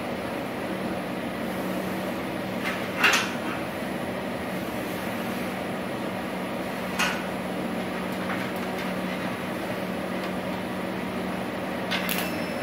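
A spot welding machine with its water cooling running gives a steady hum. A few sharp clanks come as the welding gun and sheet are handled, the loudest about three seconds in. Near the end the spot welder fires on a steel sheet with a short cluster of crackling snaps as sparks fly.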